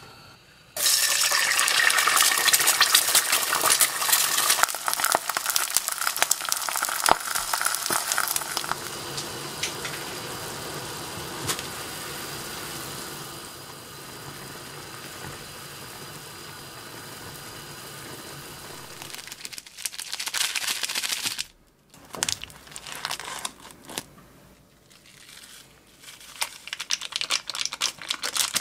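An egg frying in hot oil in a stainless steel pan: loud sizzling that starts suddenly about a second in, then eases to a steadier, quieter sizzle. Near the end, short rustles and crinkles as instant noodle seasoning powder is shaken from its foil packet and stirred in with chopsticks.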